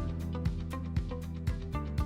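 Background music with a steady beat, drum hits about twice a second over bass and plucked notes.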